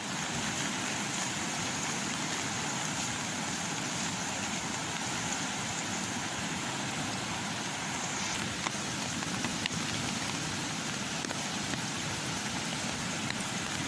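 Steady rush of water from a swollen, flooded river in spate, with a few faint ticks in the second half.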